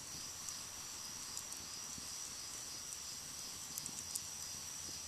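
A steady high chorus of crickets, with a few faint crackles from the wood fire in the fire pit.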